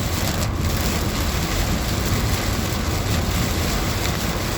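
Heavy hurricane rain on a car's roof and windshield, heard from inside the car, over a steady low rumble.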